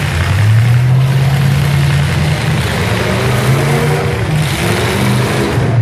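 Engines of full-size demolition derby pickup trucks running loud, one revving up about half a second in and holding its higher pitch.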